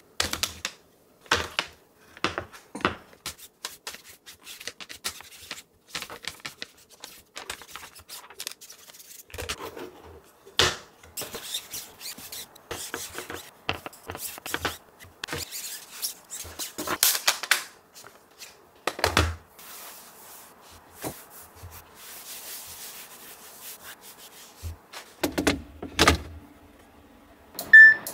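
Handling of a clothes dryer's plastic lint filter: a run of clicks and knocks as the frame is opened and moved, with rubbing and scraping as the lint is cleared off the mesh, and a few heavier thuds near the end.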